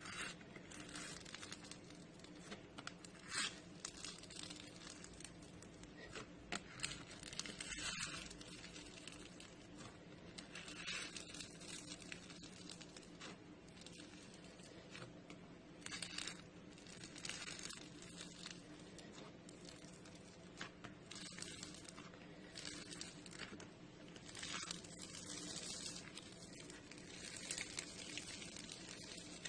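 Hands squishing, stretching and pulling apart slime: irregular soft crackles and squelches, some brief and some drawn out. A faint steady hum runs underneath.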